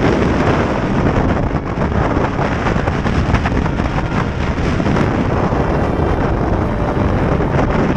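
Steady storm wind buffeting the microphone on a sailboat's deck, with breaking waves rushing along the hull.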